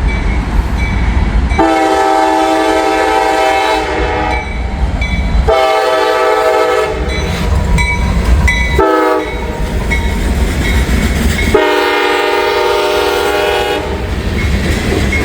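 CSX freight locomotive's multi-chime air horn sounding the grade-crossing signal: two long blasts, a short one, then a long one. The locomotive's low rumble and wheel clatter run underneath.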